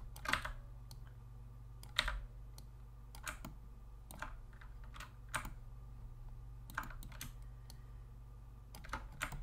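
Clicks of a computer mouse and keyboard, about ten of them at irregular intervals, over a steady low hum.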